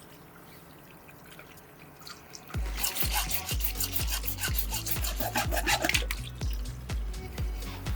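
Background music with a steady bass beat that comes in about two and a half seconds in, with a rapid scratchy crackling over the middle stretch.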